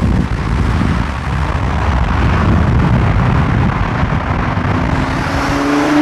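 Cars driving at speed: a loud rumble of engine and road noise with wind rushing over the microphone, settling into a steady engine drone near the end.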